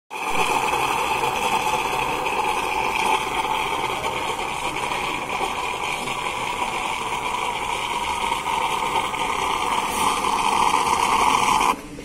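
Whirlpool built-in automatic coffee machine frothing milk for a cappuccino: a steady, loud hiss of steam and milk sputtering from the milk spout into the cup, which cuts off suddenly near the end.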